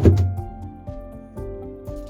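Background music with sustained notes changing in a steady pattern, and a loud thump right at the start.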